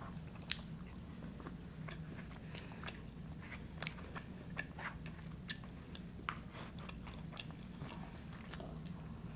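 Close-up eating sounds: a person chewing and crunching tortilla chips and burrito-bowl food, with many scattered sharp clicks and smacks. A faint steady low hum sits underneath.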